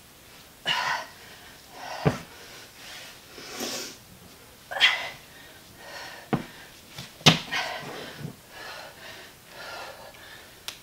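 Heavy breathing during a dumbbell exercise, a forceful exhale every second or so, with three sharp knocks of dumbbells on the floor.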